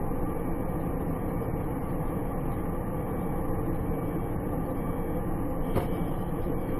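Steady engine and road noise of a moving vehicle heard from its cabin, with a single short click near the end.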